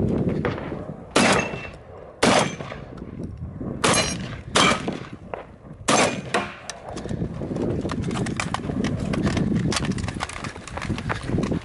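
Hurried footsteps on dirt, then five shotgun shots at uneven intervals over about five seconds, followed by more running footsteps crunching on the dirt.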